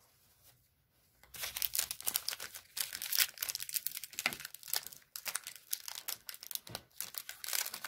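Wrapper of a Panini Threads basketball card pack crinkling and tearing as it is opened by hand, starting about a second in as a dense run of crackles.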